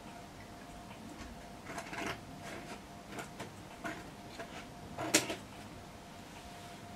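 Faint steady hum with scattered soft clicks and taps, one sharper click about five seconds in.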